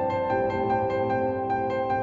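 Background music: soft piano-led instrumental with steady, evenly spaced notes.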